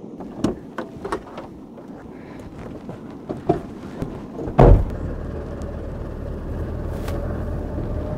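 Clicks and knocks as someone gets into a 4x4 pickup truck, then a heavy thump about halfway through, followed by the truck's engine running steadily.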